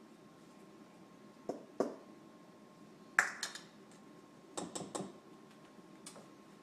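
Kitchen utensils and containers clicking and clinking as ingredients are measured and added to a mixing bowl: a few separate sharp clinks, the loudest about three seconds in, and a quick cluster of them around five seconds.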